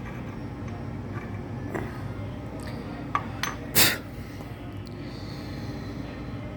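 A few light metallic clinks, then a sharper knock about four seconds in, as small steel parts and tools are handled, over a steady low hum.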